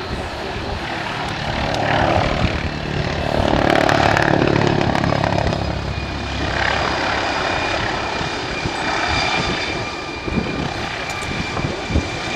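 Police helicopter flying close overhead: a steady rotor and turbine noise that swells and fades as it banks round, loudest about four seconds in, with a thin high turbine whine in the later part.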